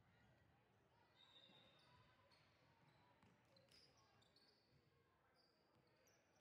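Faint basketball game sounds in a gym: a ball bouncing on the court and brief high sneaker squeaks, over a low murmur of distant voices.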